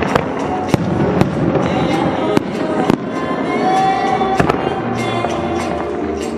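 Aerial fireworks shells launching and bursting, a string of sharp bangs at irregular intervals, over music played for the show.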